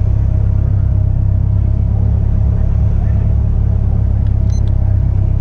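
Caterham Seven's 1.6-litre Ford Sigma four-cylinder engine idling steadily with a low rumble, heard from the open cockpit. A short high beep comes about four and a half seconds in.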